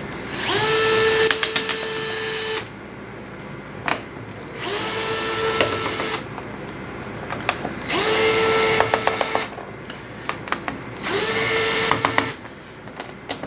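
Small cordless electric screwdriver backing screws out of a Lenovo N22 Chromebook's bottom case, in four separate runs. Each run spins up to a steady whine for a second or two and ends with a few clicks, with short pauses between.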